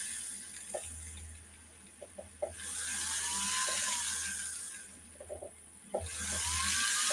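Rotary tool with a small polishing bit, run in three bursts while polishing the inside of a small metal fitting. Its whine rises and falls as it spins up and winds down, stopping about a second in and again near five seconds, with light clicks in the pauses.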